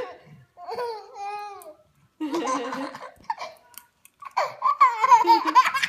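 A baby laughing in bursts of giggles and belly laughs, louder and more continuous near the end.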